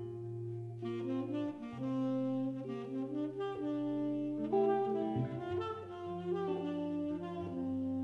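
Small jazz band playing: a tenor saxophone carries the tune in long held notes over piano chords and upright bass, with the chords changing every second or so.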